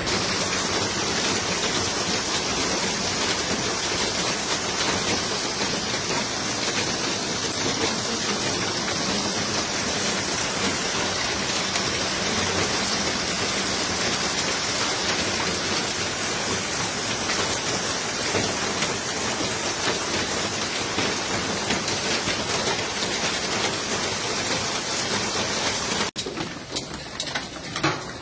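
Heavy rain pouring down, a steady dense hiss. About two seconds before the end it cuts abruptly to a different, thinner rain recording.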